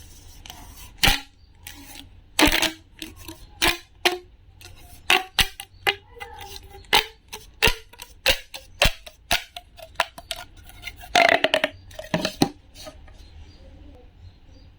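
Irregular series of sharp clicks, taps and clinks of small hard objects being handled, several a second, with louder clattering knocks about two and a half seconds in and again near the eleven-to-twelve-second mark.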